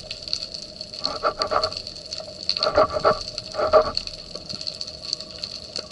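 Underwater sound picked up by a diving camera: a steady high whine and ongoing crackling clicks, with three short bursts of lower sound about a second in, around three seconds and near four seconds.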